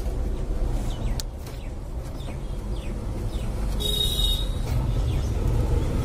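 Low, steady rumble of motor vehicles, growing louder toward the end, with a sharp click about a second in and a brief high-pitched beep about four seconds in.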